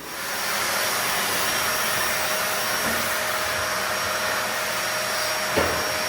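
A small electric motor moving air: a steady rush with a thin whine that starts at once and holds level, with a single knock about five and a half seconds in.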